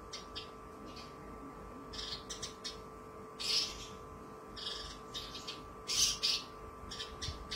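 Caged Javan bush lark singing: a string of short, sharp chirps broken by pauses, with two louder, harsher notes about three and a half and six seconds in and a quick run of chirps near the end, over a faint steady hum.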